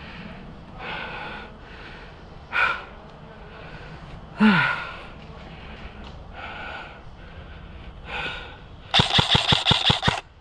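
A burst of automatic fire from an airsoft rifle near the end: about eight sharp shots in just over a second. Several softer short sounds come before it.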